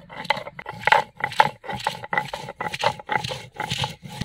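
Stone roller scraping back and forth on a sil-batta grinding stone, about three strokes a second, grinding fresh coriander leaves and garam masala into a wet paste.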